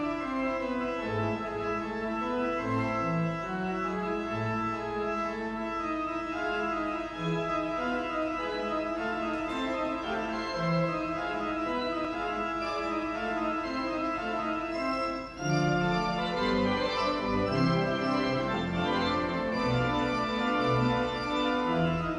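Wurlitzer theatre pipe organ playing a tune, full chords held over separate low bass notes that change every second or so. About fifteen seconds in the sound breaks off for a moment, then returns louder and fuller.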